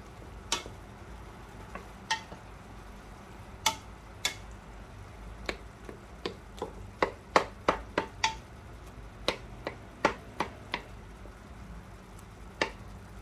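Diced apples being stirred in a stainless steel pot, with sharp metallic clinks against the pot, a quick run of them in the middle and single clinks before and after.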